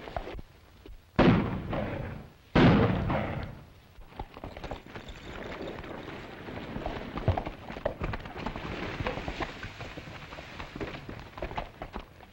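Two loud bangs about a second and a half apart, each dying away over about a second, followed by the busy clatter of horses' hooves on dirt.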